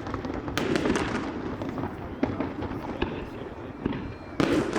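Aerial fireworks going off: two loud bursts, about half a second in and near the end, with smaller pops and crackles between them.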